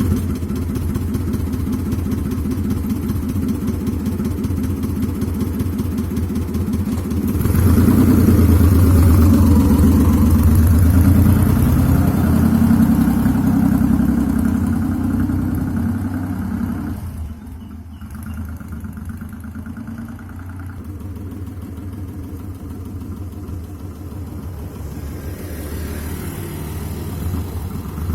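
Motorcycle powered by a car engine, running on the road. The engine gets louder for about ten seconds from around seven seconds in, drops off sharply around seventeen seconds, then slowly builds again near the end.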